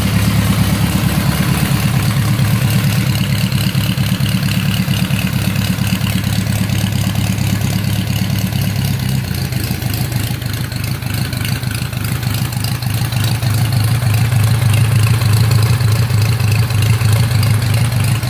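A 1917 Henderson inline four-cylinder motorcycle engine running steadily, with an even rhythmic beat, a little louder in the second half.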